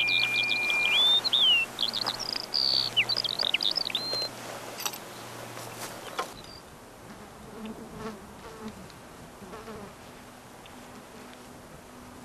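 Bird song of quick chirps and whistles over the steady buzz of a flying insect. The birds stop about four seconds in and the buzz about six seconds in, leaving quieter meadow ambience with faint rustles.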